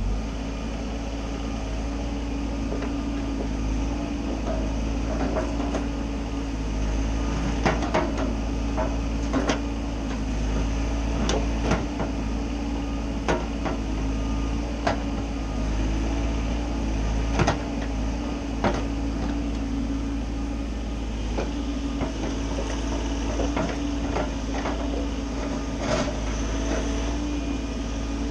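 Bobcat mini-excavator's engine running steadily under work, with sharp irregular knocks every second or two from the machine and its bucket.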